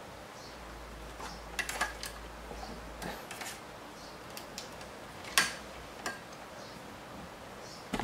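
Scattered light clicks and taps over quiet room noise, a small cluster about one and a half to two seconds in and the sharpest about five and a half seconds in.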